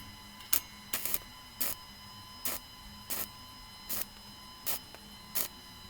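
A series of sharp, irregularly spaced taps on thin stainless-steel sheet, about one or two a second, some coming in quick pairs, over a steady faint hum.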